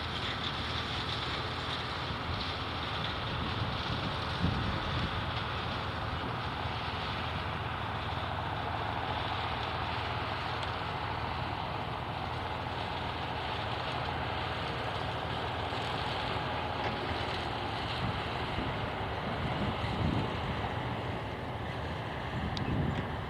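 Heavy farm machinery running steadily, with wind buffeting the microphone.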